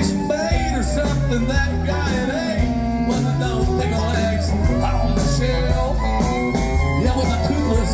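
Live country band playing a song: electric guitars and fiddle over bass and drums, with a steady beat.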